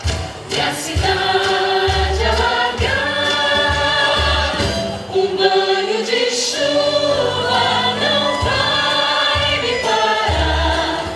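A group of voices singing together in chorus over an accompanying backing track with a regular bass beat.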